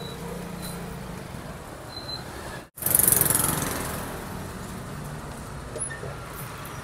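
Street background of a motor vehicle engine running steadily with a low hum, broken by an edit about two and a half seconds in and followed by a brief loud rush of noise that fades.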